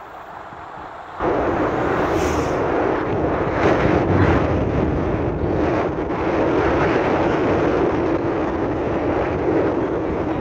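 Rushing wind and road noise of a vehicle driving along a road. It is a steady roar that jumps abruptly louder about a second in.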